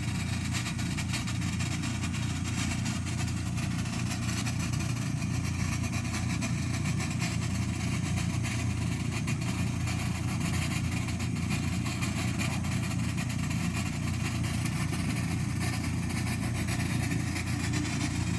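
An engine running steadily with a low, unchanging drone.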